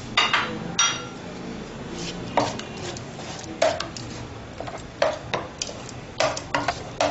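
A spoon knocking and scraping against a cooking pot of thick custard: a run of sharp clinks and knocks about a second apart, coming closer together near the end.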